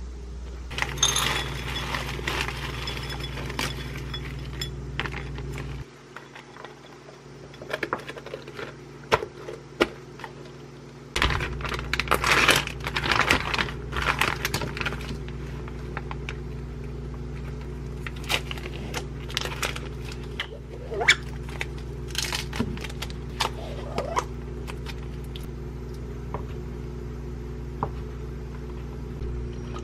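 Food-prep handling: a plastic food wrapper crinkling and tearing in two spells of rustling, then a knife cutting cheese sticks on a wooden cutting board with a few sharp taps. A steady low hum runs underneath and drops away for a few seconds about six seconds in.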